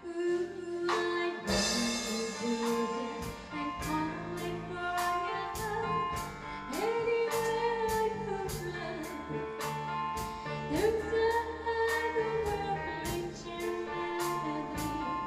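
Live band music: a woman singing lead over drum kit, bass, electric guitar and keyboard, with a steady beat of about two drum strokes a second. A cymbal crash comes about a second and a half in, and long held sung notes come in the second half.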